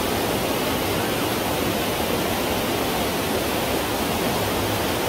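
Loud, steady rush of flowing river water.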